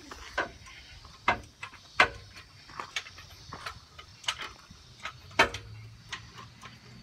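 A series of sharp clicks, about one every three-quarters of a second, the loudest about two seconds in and again past five seconds.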